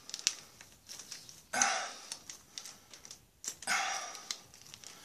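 MRE beverage powder pouch, a stiff laminated foil packet, crinkling and crackling in the hands as its top is pulled to tear it open: small scattered clicks with two longer crackly rustles, about a second and a half in and about three and a half seconds in.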